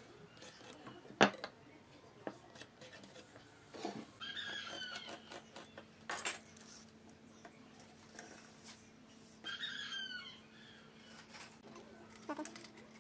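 Workbench handling: a steel square and rule clinking and pine boards knocking on the wooden bench, with a sharp knock about a second in and a few lighter ones later. A short high chirping call comes twice in the background, and a faint steady hum sets in about four seconds in.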